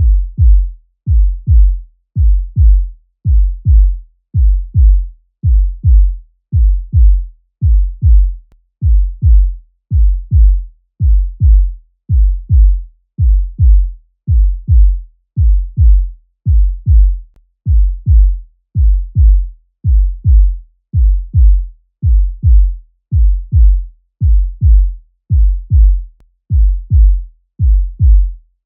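Heartbeat sound effect: a steady lub-dub, pairs of deep low thumps repeating evenly about once a second, with nothing else heard.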